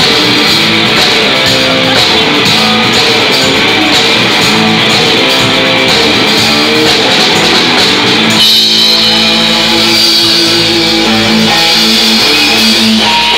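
Live rock band playing, electric guitar over drums. About eight seconds in the drums drop out and the electric guitar carries on alone with held, ringing notes.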